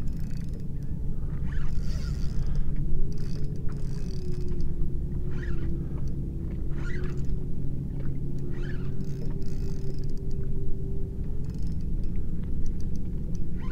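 Wind rumbling on the microphone. A faint steady hum starts about three seconds in and fades near the end, and a few brief soft rustles come through.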